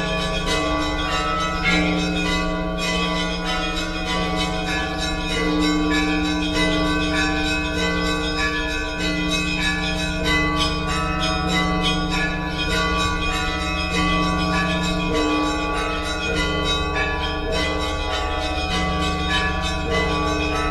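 Several church bells rung together in a Russian Orthodox–style peal. Quick, frequent strokes on the smaller bells sound over the deeper ringing of larger bells, whose tones change every second or two.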